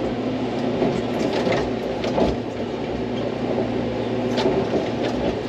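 Hydraulic excavator's diesel engine running steadily under work, with a few knocks as the bucket digs.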